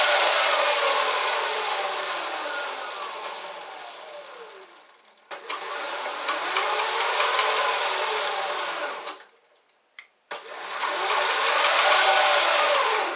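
Lightning Rods Big Block electric motor and chain drive whining as the bike's rear wheel spins off the ground. The whine first winds down with falling pitch, then two short throttle runs about 5 and 10 seconds in each rise and fall in pitch and cut off abruptly, with a click between them.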